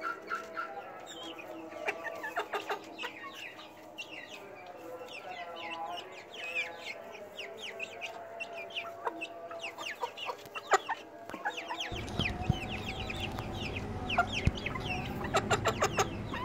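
Young chickens peeping and clucking as they feed on maggots, many short falling peeps over lower clucks, with scattered sharp taps of beaks pecking in the clay dish. A low rumble comes in about two-thirds of the way through.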